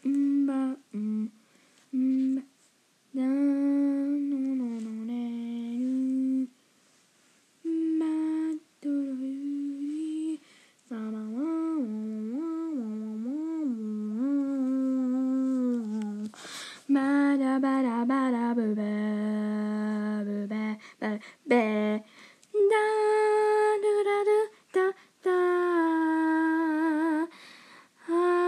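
A person humming a made-up wordless tune in short phrases with brief pauses between them; the pitch slides and wavers up and down in places.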